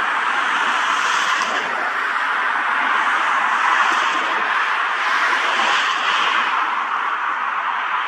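Cessna Citation XLS business jet's twin turbofan engines running, a steady rushing noise with no change in pitch.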